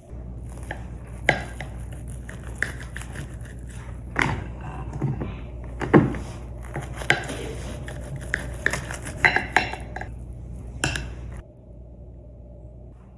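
Dishes and cutlery clinking and knocking in irregular sharp taps over a steady low hum, cutting off abruptly about eleven seconds in.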